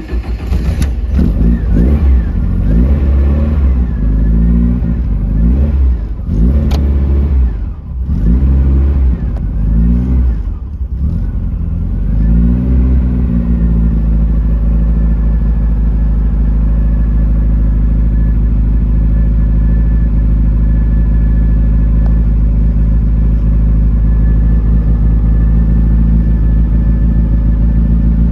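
Beck Spyder's engine just started from cold, revved up and down several times over the first dozen seconds, then settling into a steady, even idle.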